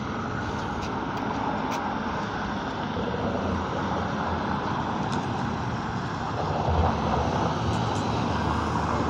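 Steady street traffic noise from passing cars, a continuous rumble that grows a little louder about seven seconds in.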